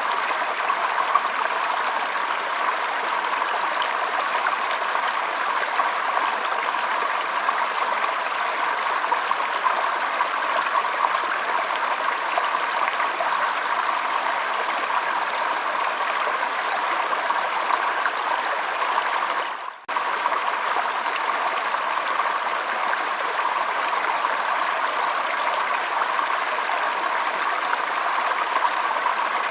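Flowing water running steadily, with a brief dropout about two-thirds of the way through.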